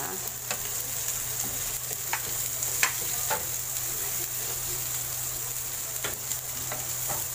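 Onions, corn and peppers sizzling in a nonstick frying pan, with a steady hiss throughout. A wooden spatula taps and scrapes in the pan several times, the sharpest knock a little under three seconds in.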